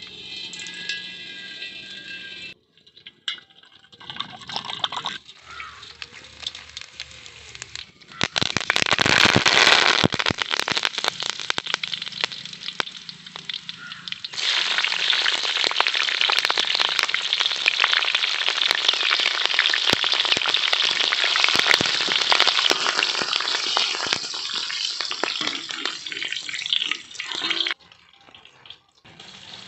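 Hot oil sizzling and crackling in an iron kadai as curry leaves and bay leaves fry in it. The loud sizzle starts abruptly about eight seconds in, runs in two long stretches, and cuts off suddenly near the end.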